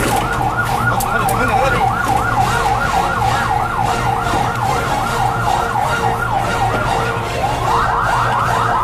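Ambulance electronic siren in a fast yelp, about four pitch sweeps a second, switching near the end to a sharper, quicker sweep pattern. A vehicle engine runs underneath.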